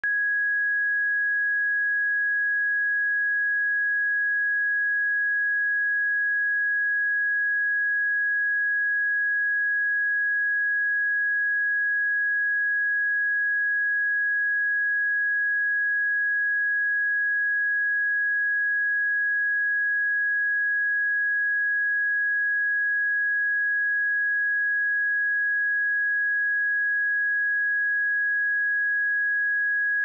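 A pure sine-wave test tone at 1662 Hz, one steady high-pitched tone held at constant loudness.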